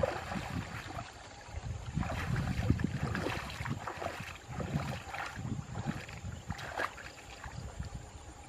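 Irregular splashing and sloshing of water, in uneven bursts that quieten near the end.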